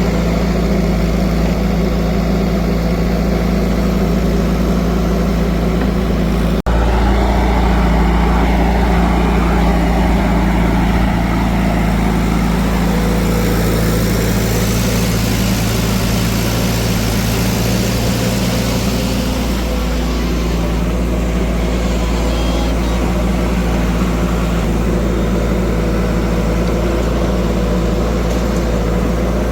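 Steady engine drone of heavy machinery running, with an abrupt break about seven seconds in after which the tone shifts.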